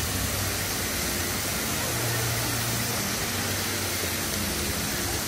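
Fountain water jets spraying and falling back into the pool: a steady rushing hiss of water.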